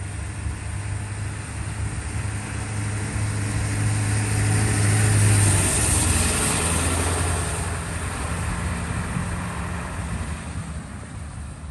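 Cars driving past on a residential street: engine hum and tyre noise swell to a peak about halfway through, the hum dropping in pitch as a vehicle goes by, then fade as another vehicle approaches.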